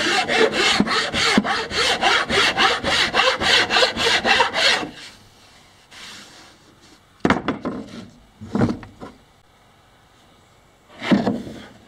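Hand file scraping back and forth along the edge of a plywood panel, rounding off a point: a quick, even run of about five strokes a second that stops about five seconds in, followed by a few separate short scrapes.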